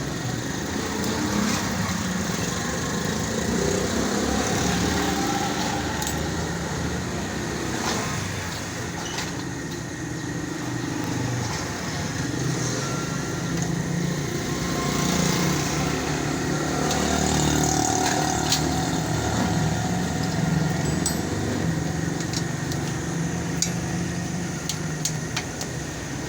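Steady rumble of motor vehicles running and passing, rising and falling in level, with scattered sharp metallic clicks and taps from work on a bicycle.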